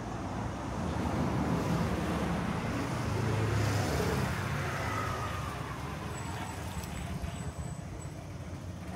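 A motor vehicle driving past. Its engine and tyre noise build from about a second in and fade again after about four and a half seconds.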